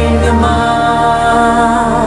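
Song playing, with a long held note over sustained chords and a low held bass.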